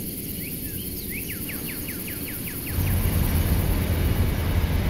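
A bird calls a quick series of about eight falling notes over a steady outdoor hiss, then, from about three seconds in, a train's low steady rumble takes over.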